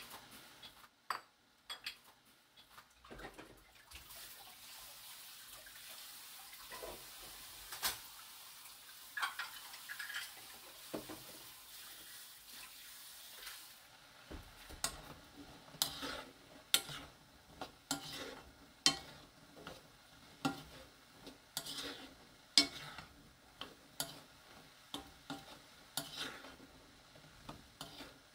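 Kidney beans and peas simmering on low heat in a soy-sauce braising liquid in a nonstick pan, the liquid bubbling with a soft hiss as it reduces to a glaze. From about halfway, sharp ticks and pops come roughly once a second.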